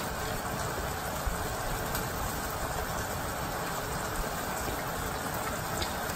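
Chicken pieces simmering in liquid in a stainless steel pan on a gas stove, a steady even bubbling noise with a few faint ticks.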